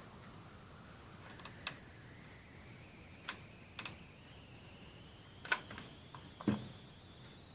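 Scattered light clicks and taps, about five, as small craft pieces are handled and set on a tabletop, over a faint high whine that slowly rises in pitch.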